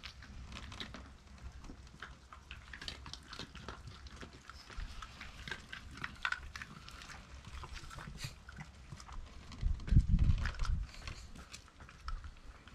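Shiba Inus sniffing and mouthing dog biscuits held out in a hand, heard as many small scattered clicks and ticks. A dull low thump about ten seconds in.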